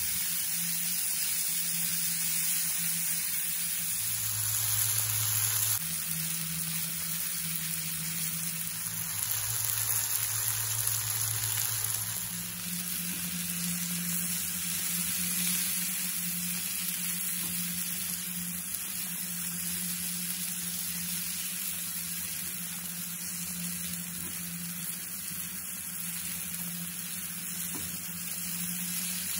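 Cooked white beans sizzling as they fry in an oiled nonstick frying pan, stirred and scraped with a silicone spatula until they dry out. A steady low hum runs underneath.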